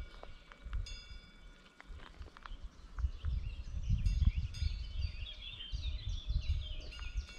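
Cowbells on grazing cattle clanking a few times and ringing on, then a songbird singing a fast run of falling chirps from about three seconds in, over a low rumbling noise.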